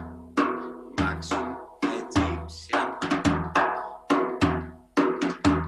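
Large bendir-type frame drum playing the Egyptian maqsum rhythm. Deep ringing bass strokes fall about once a second, with sharper edge strokes between them and quick pairs of light fill notes from the other hand.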